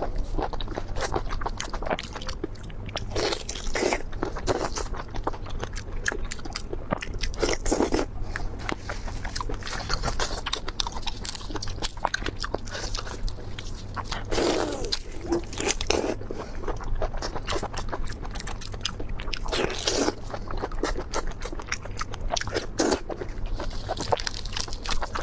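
Close-miked eating: steady crunching, biting and chewing of raw marinated tiger prawns, with dense crackly clicks and a few louder wet mouth sounds every few seconds.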